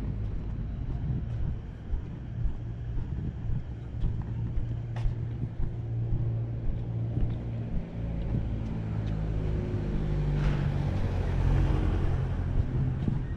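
Street traffic, with motor-vehicle engines running close by at a steady low pitch. It grows louder about ten seconds in, with a sharp click about five seconds in.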